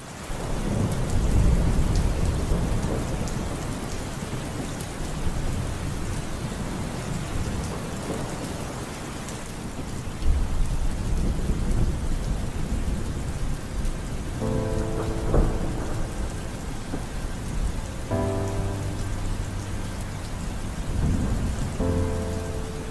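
Steady heavy rain with rolls of thunder, the loudest rumbles near the start and again about halfway. In the second half, held musical chords swell in three times over the rain.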